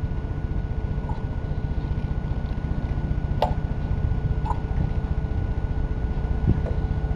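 Primer bulb on an old Briggs & Stratton 3.5 hp mower engine being pressed by hand: a few soft squishes and one sharp click about three and a half seconds in, over a steady low rumble. The owner takes the engine's failure to draw fuel for a clogged fuel pickup tube.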